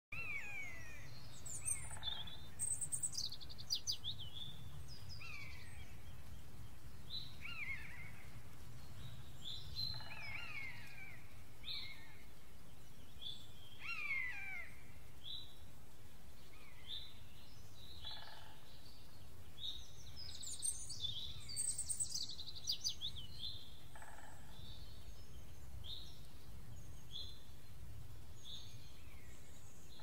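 Several songbirds calling and singing over a steady low forest rumble. There are falling whistled notes every few seconds and short repeated chirps, with two bursts of rapid high notes, one near the start and one about two-thirds of the way through.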